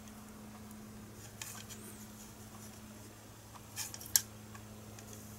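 Light clicks and rattles of alligator clips and multimeter test leads being handled, the sharpest click about four seconds in, over a steady low hum.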